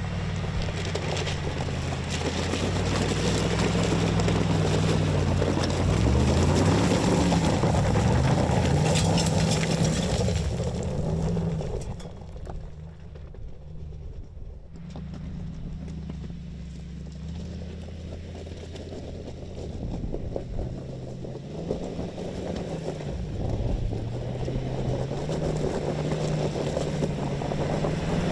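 Mercedes-Benz G-Class twin-turbo V8 crawling over loose rock at low revs, its pitch rising and falling several times as the throttle is worked, with a rough noise of tyres on stones. It drops quieter for a few seconds midway, then rises again.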